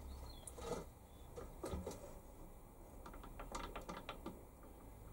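Faint mechanical clicking and rattling from a Warco WM180 lathe's handwheels, leadscrew and gears as the carriage and cross-slide are wound by hand, with a cluster of quick clicks about three to four seconds in.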